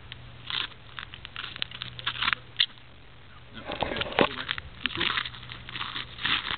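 Handling noise: rustling and scraping with scattered clicks, busiest about four seconds in.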